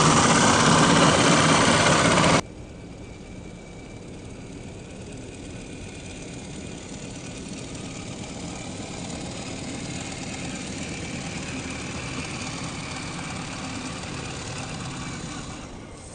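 Loud rushing noise close to the microphone cuts off abruptly about two seconds in. It gives way to the quieter, steady whine of a radio-controlled scale crawler's electric motor and gearbox as the truck drives over pine needles, with a faint high tone.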